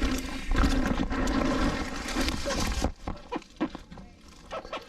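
Mountain bike riding noise: tyres rumbling over dirt and rock with wind buffeting the camera microphone, which stops suddenly about three seconds in and is followed by a few light knocks.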